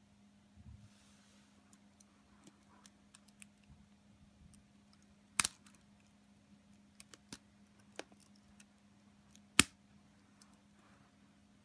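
Lego Technic plastic parts being handled and pressed together: scattered light clicks and taps, with two louder snapping clicks, one about halfway through and one a few seconds later, as pins seat in a liftarm's holes.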